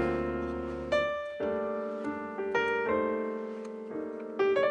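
Background piano music, with single notes and chords struck about every half second, each ringing and fading away.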